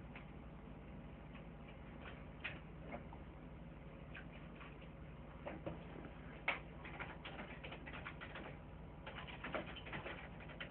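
Faint bird calls, scattered short chirps and ticks with a few brief downward glides, bunching more densely near the end, over a steady low hum.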